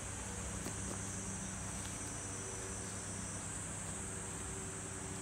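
Steady workshop background noise: a low hum under a constant high-pitched hiss, with no distinct events.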